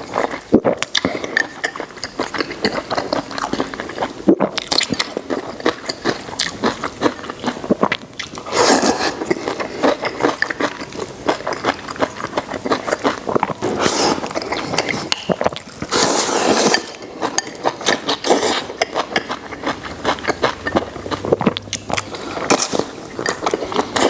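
Close-miked chewing of water-boiled pork intestines, a dense run of irregular wet clicks and smacks.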